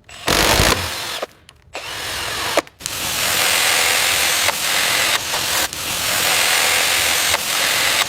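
Power tool running in bursts: a short burst, a drop-out of about half a second, a brief restart, then steady running from about three seconds in.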